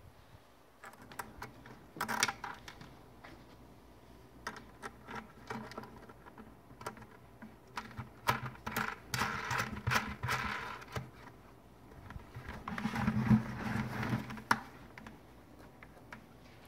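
Small clicks, taps and scraping of a metal bolt, washer and nut being fitted by hand through a hole in the rim of a plastic bucket, in a few short spells of handling.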